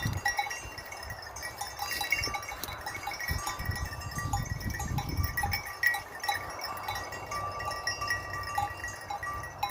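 A flock of Sakız (Chios) sheep bleating.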